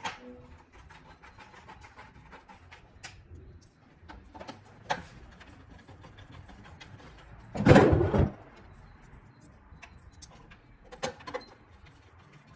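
Small metallic clicks and taps of a hex key and screws being handled and turned into a bike trainer's housing, with one louder, half-second thump about eight seconds in.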